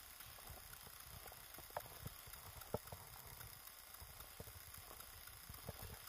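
Footsteps crunching in deep snow: a few faint, irregular crunches and knocks, muffled by an action camera's waterproof housing.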